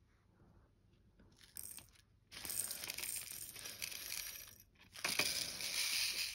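Small plastic diamond-painting drills poured out of a plastic bag into a container, a dense rattling rustle that starts about two seconds in, breaks off briefly just before the five-second mark, then resumes.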